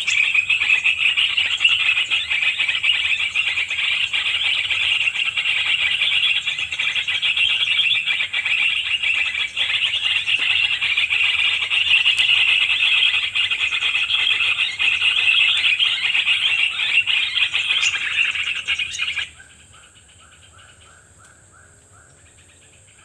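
A cicada's loud, steady, high buzzing that cuts off suddenly about 19 seconds in. After it stops, faint quick bird-like chirps repeat.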